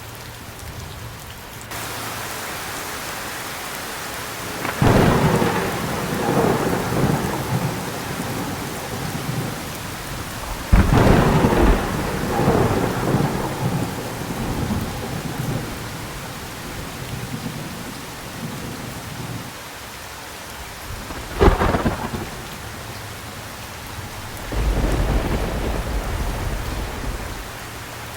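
Heavy rain falling steadily, growing louder about two seconds in, with four peals of thunder: two cracks that roll on for a few seconds each, a short sharp crack, and a low rumble near the end.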